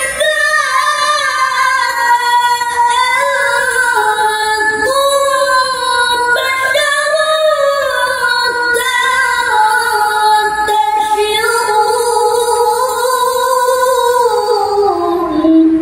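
A man reciting the Quran in melodic tilawah style, singing one long, ornamented phrase with wavering, gliding pitch. Near the end the pitch sinks, and then the phrase stops.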